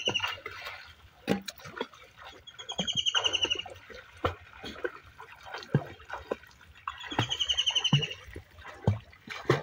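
A bird repeating a rapid trilled call about every four to five seconds. Between the calls come splashes and sloshing of pond water from swimming strokes and wading.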